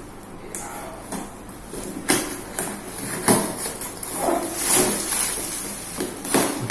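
Irregular rustling, clicks and light knocks of hands handling and unwrapping packaging and parts of an RC rock crawler car.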